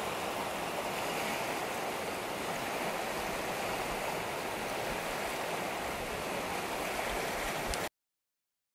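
Floodwater of a river in spate rushing over a rocky bed: a steady, unbroken rush of turbulent water. It cuts off abruptly near the end.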